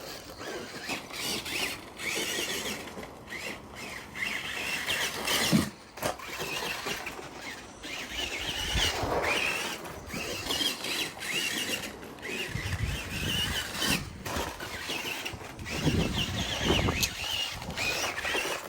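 Electric RC buggy's 23-turn brushed motor and gears whining, the pitch rising and falling as it speeds up and slows round the track, with a few dull thumps near the end.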